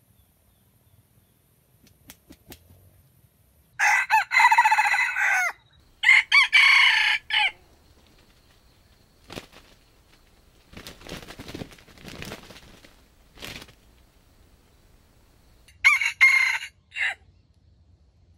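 Rooster crowing three times: two crows about two seconds apart a few seconds in, and a third near the end. Softer rustling comes between them.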